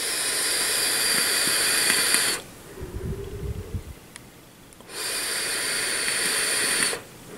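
Vape atomizer firing on a Lost Vape Paranormal DNA75C box mod: two puffs of about two seconds each, the first at the start and the second about five seconds in, each a steady hiss of e-liquid sizzling on the heated coil and air drawn through the atomizer.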